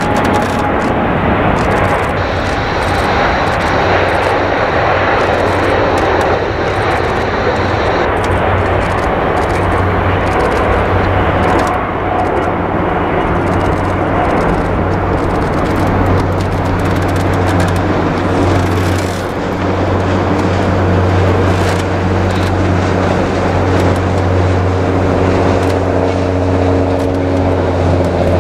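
Airbus A350-900's Rolls-Royce Trent XWB turbofans at takeoff thrust: a loud, steady jet roar with a deep hum underneath as the airliner rolls, lifts off and climbs away.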